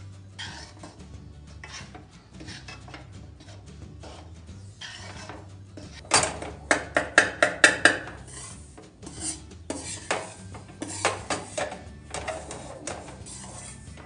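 Metal slotted spatula scraping and stirring wheat flour and ghee around an aluminium kadhai as the flour roasts, with a quick run of sharp clinks against the pan about halfway through and a few more soon after.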